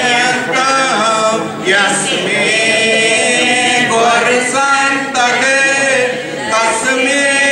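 A small group of men and women singing a Sanskrit devotional hymn together, in long held phrases with brief breaks between them.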